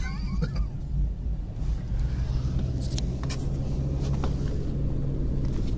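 Road and engine noise inside a moving car's cabin: a steady low rumble, with a steady low engine hum coming in about two seconds in.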